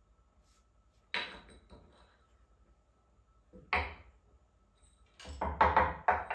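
Small terracotta plant pots and saucers being handled and set down on a stone worktop: a sharp clink about a second in, another knock near four seconds, then a quick run of knocks and scrapes near the end.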